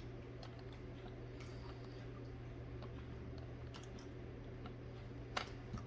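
Faint, scattered small clicks and ticks of a micro flathead screwdriver and a metal eyeglass frame being worked to loosen the tiny screw that holds the lens. A sharper click comes near the end, over a steady low hum.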